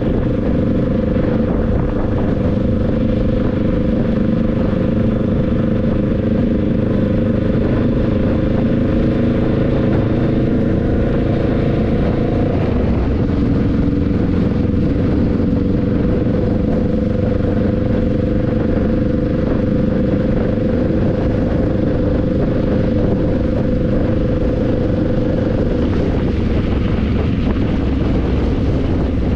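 Motorbike engine running steadily on the move, its pitch shifting a little about halfway through, over a steady hiss of rain and road noise.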